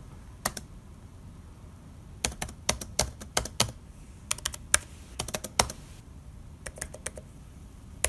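Typing on a Dell G7 laptop's keyboard to enter a login password: a couple of lone key presses, then three quick runs of key clicks.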